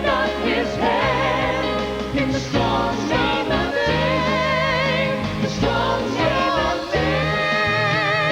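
Christian vocal group singing with instrumental accompaniment, several voices holding long notes with vibrato over a steady bass line.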